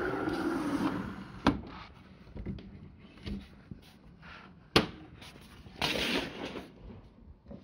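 Camera handling noise: fabric rustling close against the microphone, with a knock about one and a half seconds in, a sharper, louder knock near five seconds, and another rustle shortly after.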